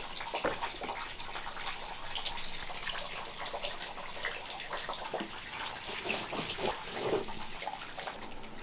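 Wet spice masala being ground by hand on a traditional stone grinding slab with a stone roller, with irregular wet scraping and squishing strokes.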